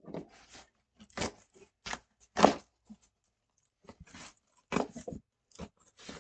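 Mailing package being worked open by hand: a string of irregular crinkles, scrapes and rips of packaging, the loudest about two and a half seconds in.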